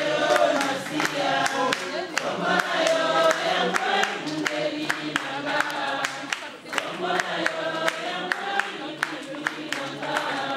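A group of people singing together, with hand claps keeping a steady beat.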